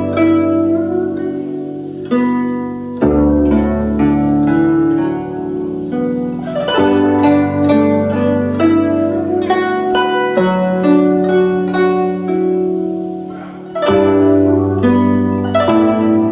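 A Zhuque Series 6 hollow-carved guzheng with a paulownia soundboard, played as a slow melody of plucked notes that ring on over low bass notes. The music fades a little, then comes back strongly about 14 seconds in.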